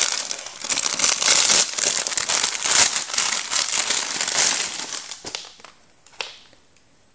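Thin clear plastic packaging bag crinkling as hands handle it and pull a fabric skirt out of it. The crinkling dies away about five seconds in.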